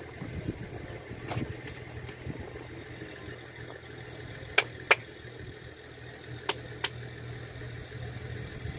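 Vehicle engine running steadily at a low, even hum. Two pairs of sharp clicks stand out, about halfway through and again a little later.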